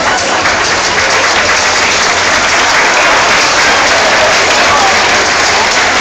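Audience applauding, a loud steady clatter of many hands.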